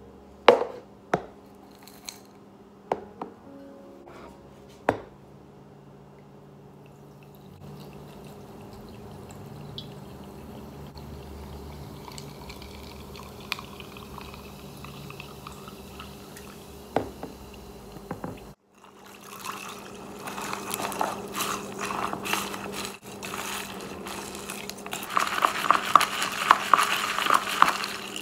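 A few sharp clinks of ice against a glass, then sparkling mineral water poured over crushed ice as a steady soft hiss. After a brief break, a spoon stirs the ice in the glass: quick rattling clinks, loudest near the end.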